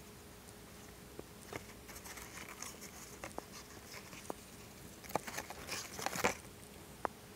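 Fingers handling a small laptop CPU and its paper mailing packaging: scattered light clicks and taps with brief crinkling. The handling gets busiest about five to six seconds in, and a single sharp click comes near the end.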